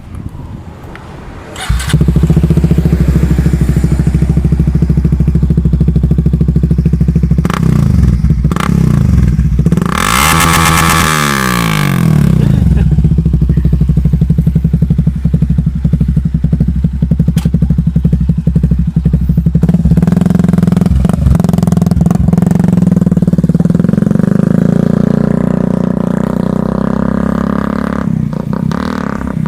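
Suzuki Gixxer SF 250's single-cylinder engine breathing through a full-system Yoshimura exhaust. It comes in suddenly about two seconds in and then runs at a steady idle. About ten seconds in there is one quick rev whose pitch rises and falls back, and the note rises and gets louder again around twenty seconds before easing off near the end.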